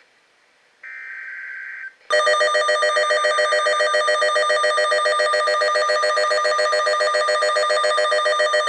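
The end of a NOAA Weather Radio SAME alert header: about a second in, a short buzzy burst of digital data tones. Then, from about two seconds in, a weather alert radio's loud alarm starts up, a rapidly pulsing electronic beep that signals an incoming warning.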